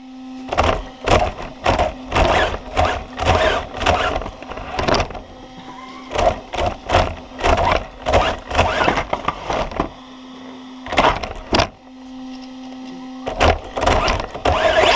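Hobby RC car's motor whining in repeated short bursts of throttle, with knocks and rattles as the car bumps about, picked up by a camera mounted on the car's hood.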